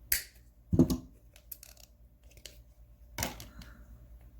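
A hand ratchet being handled: a sharp click at the start, a heavy knock just under a second in, a few small light clicks, then another knock a little after three seconds.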